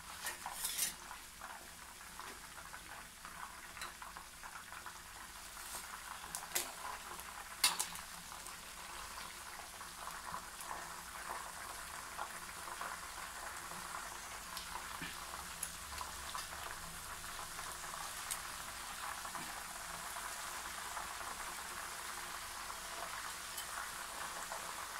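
Whole chicken deep-frying in hot ghee in a karahi, a steady crackling sizzle. A few sharp clicks of metal tongs on the pan come as the chicken is turned over, the loudest about eight seconds in.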